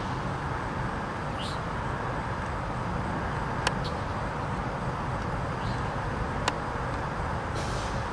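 A CSX double-stack intermodal freight train rolling away along the track: a steady low rumble. A few sharp clicks come through it, and a short high chirp sounds about one and a half seconds in.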